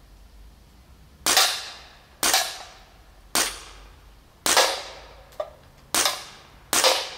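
Six shots from a Huben GK1 semi-automatic pre-charged air pistol, fired at an uneven pace of about one a second. Each shot is a sharp crack that fades out over about half a second.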